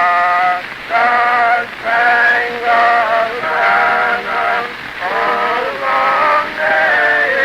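Male voices singing a tune in harmony, in held notes with short breaks between phrases, on an 1898 phonograph recording.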